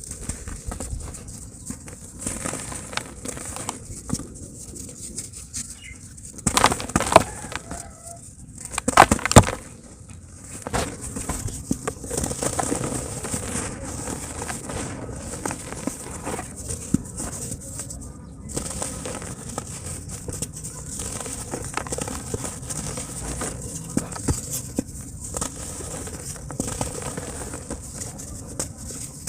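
Dry pure cement crumbling in a tub: a steady crackle of small crunches, with two louder stretches of crumbling about seven and nine seconds in.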